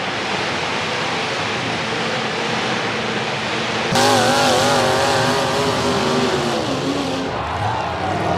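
Car engines running and revving on a demolition derby track. The sound changes abruptly about four seconds in to a wavering, pitched engine note, and falls away in pitch near the end.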